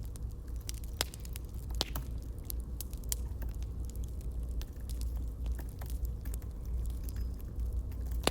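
Campfire burning, with irregular sharp crackles and pops over a low steady rumble.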